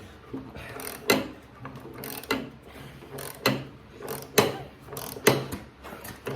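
Hand ratchet wrench clicking as it is swung back and forth on a very tight bolt. About one sharp click a second, with fainter pawl clicks between.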